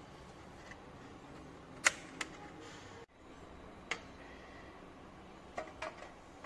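Sharp clicks and clacks from handling a CCTV DVR: its cable connectors and its metal cover being fitted back onto the chassis. There is one loud click about two seconds in, then a few lighter clacks, two of them close together near the end.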